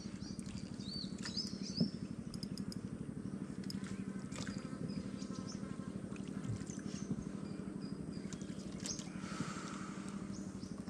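Small boat motor running steadily with a fast, even putter as a wooden canoe passes. Birds chirp faintly above it.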